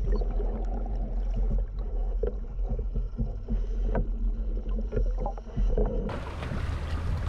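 Muffled underwater sound: a steady low rumble with scattered clicks and crackles. About six seconds in it cuts to open air at the sea surface, with wind on the microphone.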